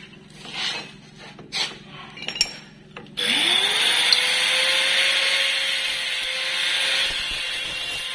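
Light metal clicks and rubbing as a brake caliper is fitted against a steel disc. About three seconds in, an electric power tool starts up: its whine rises, then holds steady under a loud hissing noise.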